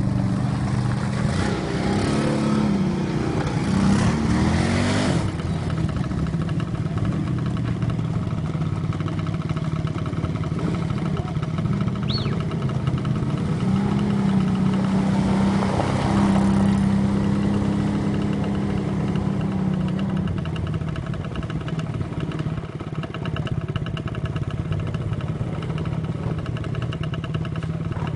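Quad bike (ATV) engine running and being revved, its pitch rising and falling in the first few seconds and again around the middle, then settling into a steadier engine drone.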